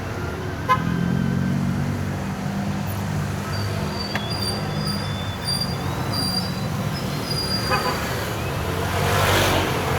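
Road traffic heard from inside a moving NWOW EMC Golf electric vehicle: a steady low engine hum from the surrounding vehicles, strongest in the first half. Faint high-pitched tones come and go through the middle.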